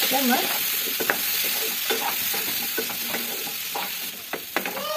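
Potato cubes and vegetable stalks sizzling in hot mustard oil and spices in a kadhai while a spatula stirs them, with scattered scrapes and taps of the spatula against the pan. The sizzle eases off slowly, and the taps come more often near the end.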